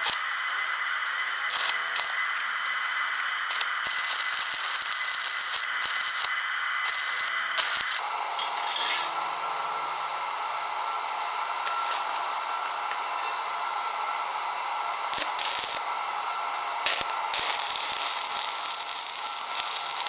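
Stick (arc) welding: the electrode's arc crackling and hissing steadily as steel auger discs are welded to a shaft, with scattered sharp pops. The crackle shifts in tone about eight seconds in.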